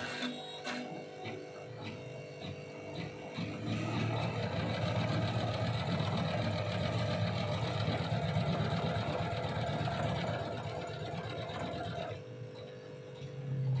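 Single-needle computerized embroidery machine stitching a design, a fast, even needle rhythm that grows louder from about a quarter of the way in and eases back near the end.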